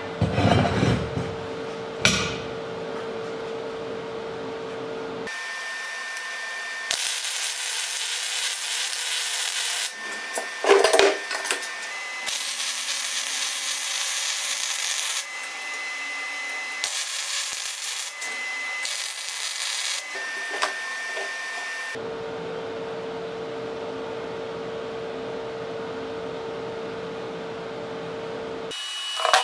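MIG welder arc welding a bolt into a steel plate: an even frying hiss in several runs of a few seconds through the middle, stopping and restarting. Before and after the welding there is a steady hum, with a few knocks of handling near the start and one loud knock partway through.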